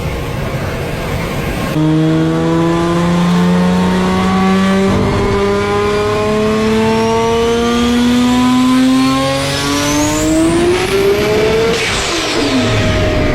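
Big-turbo Toyota Supra Mk4's 2JZ straight-six accelerating hard in one long pull. Its engine note climbs steadily with a high turbo whine rising over it, then the pitch drops sharply as the car passes by. Rushing noise before the engine note comes in about two seconds in.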